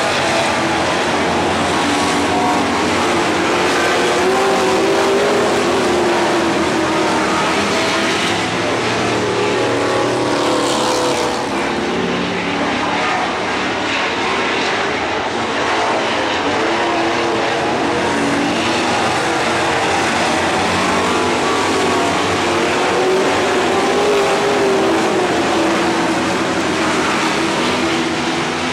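A pack of dirt-track stock cars racing, their V8 engines (among them a 358 cubic-inch small-block Chevrolet) loud and continuous, with the pitch rising and falling in slow waves as they go around the oval.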